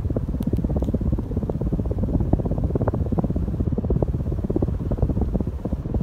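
Air pushed down by a ceiling fan's spinning blades buffeting the microphone held close beneath it, heard as a loud, uneven low rumble.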